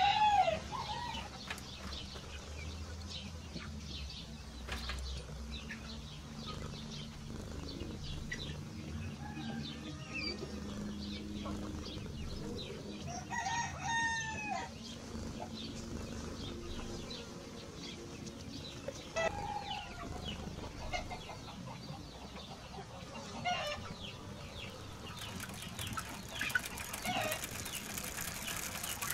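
Roosters crowing at intervals, several times, the longest crow about halfway through, over a low steady hum.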